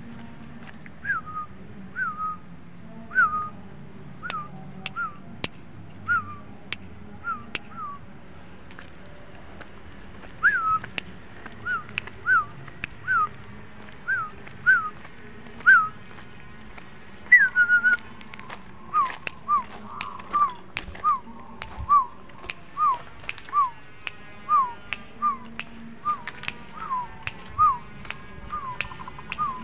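Caged zebra doves (perkutut) calling steadily: a long run of short, evenly spaced coos, each a quick falling note with a sharp click at its start, about one or two a second. About two-thirds of the way through the notes settle a little lower in pitch.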